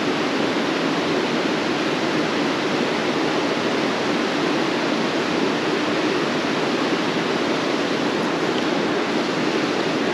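Steady, loud rush of a mountain trout creek pouring over a small rocky cascade into a pool.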